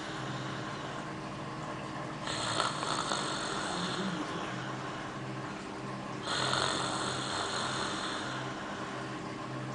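A sleeping man snoring, with two long snores about four seconds apart, the first starting about two seconds in and the second about six seconds in.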